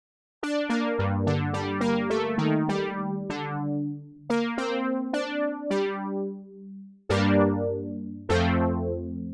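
Software synthesizer playing a plucky, electric-piano-like patch: a quick run of notes over bass notes, starting about half a second in, with each note struck sharply and fading away, then fuller chords struck twice near the end.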